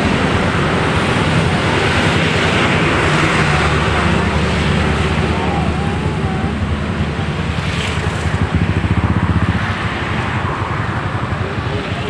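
Diesel engine of a Mercedes-Benz OC500RF coach running as the bus slowly pulls away: a deep rumble that pulses louder for a moment about eight seconds in, with a steady rushing hiss over it.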